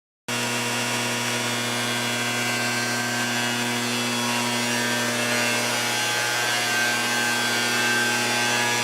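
A power tool running steadily: a constant motor hum over a loud hiss. It cuts in abruptly about a third of a second in and holds steady.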